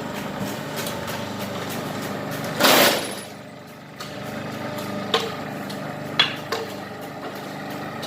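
Hydraulic concrete-block press running with a steady motor hum. About two and a half seconds in there is a loud rushing burst lasting half a second, and a couple of sharp knocks follow about five and six seconds in.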